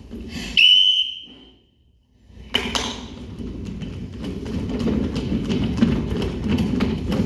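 One loud blast on a whistle, falling slightly in pitch as it fades. A brief hush follows, then the clattering footsteps of a crowd of children running and stamping across a wooden stage floor.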